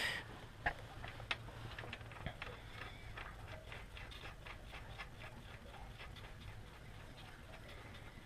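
Ratchet wrench clicking as the reversing light switch is wound into the gearbox: a few sharp clicks, then a run of quick light ticks.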